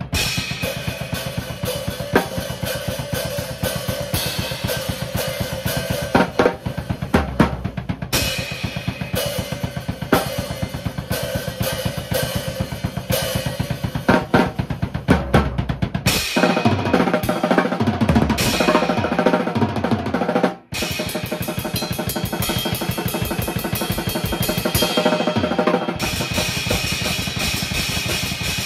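Drum kit played continuously at a fast, dense pace, with snare and bass drum. About two-thirds of the way through the playing cuts out for a split second, then carries on.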